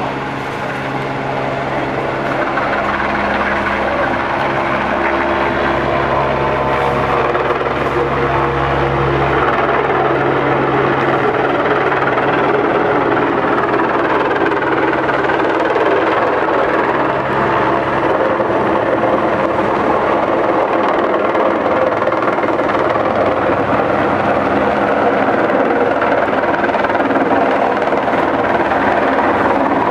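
Light helicopter hovering low overhead with a load slung on a long line: steady rotor and engine noise, getting a little louder over the first few seconds.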